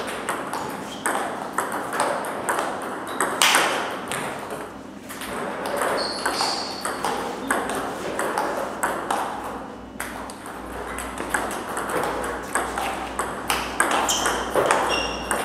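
Table tennis rally: the ball clicking in rapid, irregular succession off the bats and the table, one bat faced with Sauer & Tröger Hass 2.1 mm short pips rubber.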